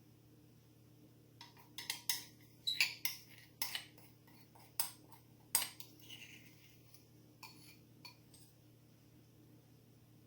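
A spoon clinking and scraping against a small dish while spooning a crumbly oat topping over fruit: about a dozen sharp clinks and scrapes, starting about a second and a half in and thinning out after about six seconds.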